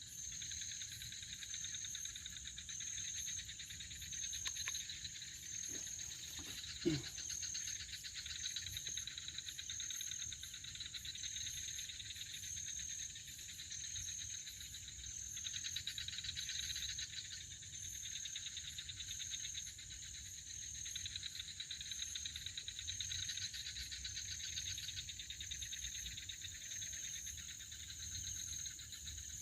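Night chorus of crickets and other insects: a steady high chirring with one high note pulsing evenly over it. A few brief knocks around the fifth to seventh second.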